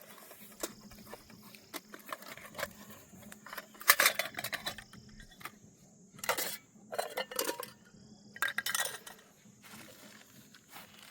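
Metal pots, cups and utensils clinking and knocking in several short clatters while being handled, the loudest about four seconds in.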